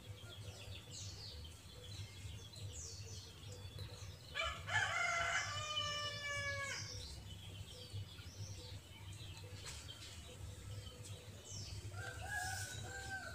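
A rooster crowing once, a long call of about two and a half seconds about four seconds in, over small birds chirping.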